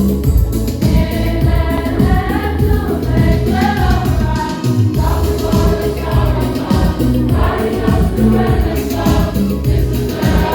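A choir of young voices singing a Christmas song over loud backing music with a steady beat.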